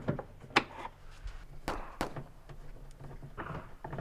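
Screwdriver working a stubborn screw out of a plastic car door trim panel: a few sharp clicks and taps with short scraping sounds between them.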